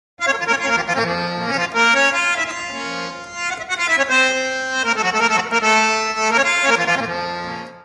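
Harmonium playing a melody in held, sustained reedy notes that step from pitch to pitch; the music stops shortly before the end.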